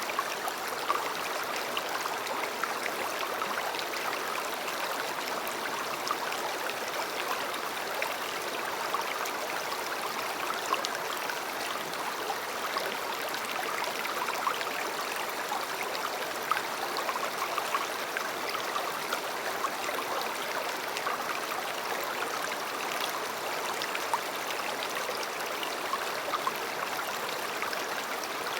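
River water flowing, a steady rushing noise with many small splashes and gurgles.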